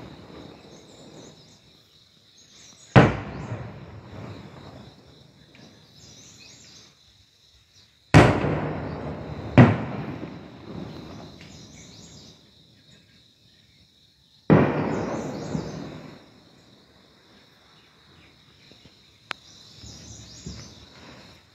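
Distant artillery shells exploding on a wooded hillside: four sudden blasts, two of them close together in the middle, each followed by a rumbling echo that dies away over a second or two.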